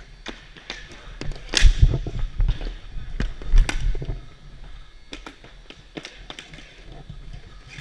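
Hockey sticks clacking and tapping on a plastic sport-court tile floor during floor hockey play, a quick irregular run of sharp knocks. Heavier thumps close by come about one and a half to two seconds in and again about three and a half seconds in.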